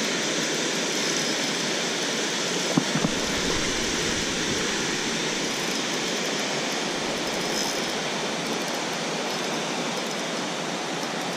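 Steady rushing of water pouring over a low-head dam spillway, with one brief click about three seconds in.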